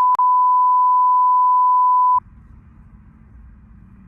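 A loud, steady electronic beep at a single pitch of about 1 kHz, with a brief click in it, cutting off about two seconds in. Faint low background noise follows.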